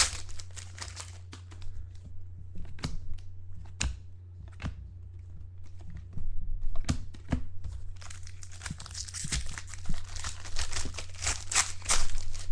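Trading card pack wrappers being torn open and crinkled by hand: scattered sharp crackles at first, then dense crinkling through the second half.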